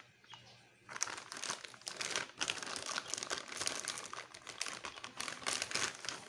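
Plastic anti-static bag around a graphics card crinkling as the wrapped card is lifted from its box and handled. It is quieter for about the first second, then crinkles continuously with many small crackles.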